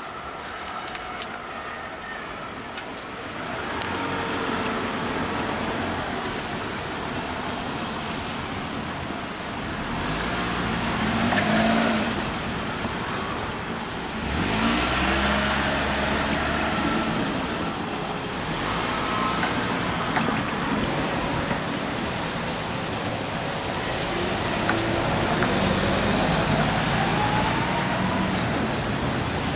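Road traffic: cars and trucks driving past one after another, engine and tyre noise swelling and fading, with engines changing pitch as vehicles speed up.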